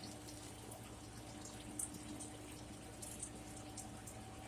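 Faint room tone: a steady low hum with a few soft, scattered clicks.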